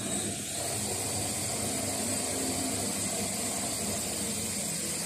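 Steady hiss with a faint high-pitched whine, starting abruptly and holding level throughout.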